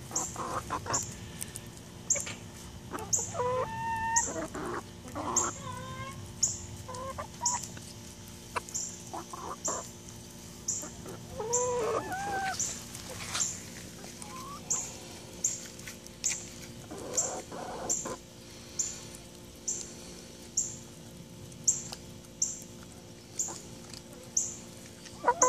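Hens clucking now and then as they feed, over a short high-pitched chirp that repeats about once a second.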